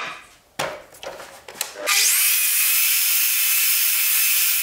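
A few light knocks as the jig and board are handled. About two seconds in, a sliding mitre saw is switched on: its motor spins up with a rising whine, then runs steadily at full speed as the blade is brought down to cut the second kerf of a notch in the board.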